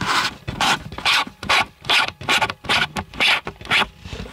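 A screw-on fisheye lens being twisted off a camera right at its microphone: a run of short gritty grating strokes from the lens threads, about three a second.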